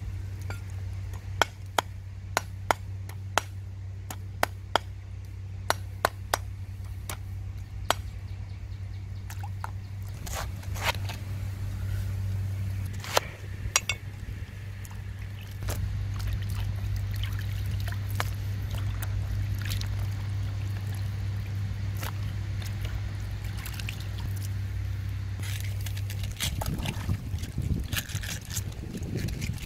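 A cleaver knocks sharply on a wooden chopping board while cutting a cabbage, about a dozen strokes in the first eight seconds and a few more later. Near the end, water sloshes and trickles as cabbage pieces are washed by hand in a plastic basin. A steady low hum runs underneath.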